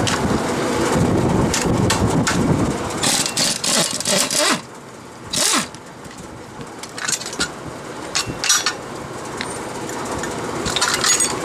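A steady motor-like drone for about the first four seconds, then quieter, with scattered sharp metal taps and clinks as engine parts (crankshaft, timing gear and chain) are handled and tapped.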